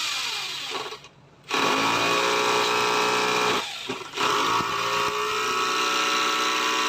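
Forte 20mm hammer drill, its piston newly replaced, run on the trigger in bursts. The motor winds down and stops about a second in, spins back up half a second later, dips briefly near four seconds, then runs steadily.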